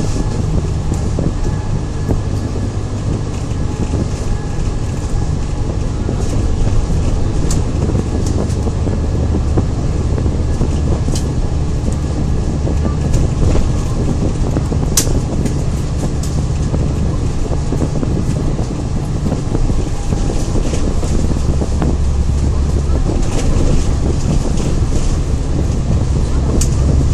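Inside an Alexander Dennis Enviro500 double-decker bus cruising at speed: a steady low engine drone under road and wind noise, with a few sharp clicks and rattles from the bodywork.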